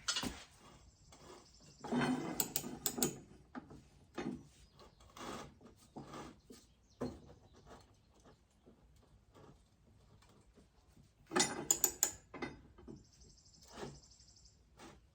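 Metal clicks, clanks and knocks of a wrench with a pipe extension working the blade bolt of a John Deere 54C mower deck as it is tightened. The clicks are scattered, with two busier runs of sharp clinks about two seconds in and again near eleven seconds.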